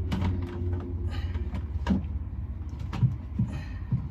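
Oil extraction pump running with a steady low hum as it draws used oil out through the dipstick tube of a MerCruiser 350 Mag MPI engine. A few light knocks and clatters from handling sound over it.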